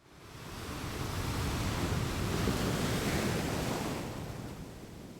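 A rushing noise, like surf or wind, that swells in over about a second, holds, then slowly fades away.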